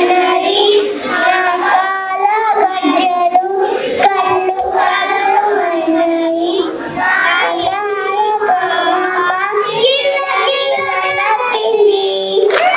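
Young children singing a Telugu song into a microphone, a continuous melodic line. Applause breaks out right at the end as the song finishes.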